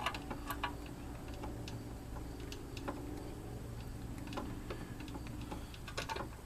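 Hand ratchet clicking in short, uneven spells as bolts are run in by hand, a cluster of clicks at first and then single clicks every second or so, over a steady low hum.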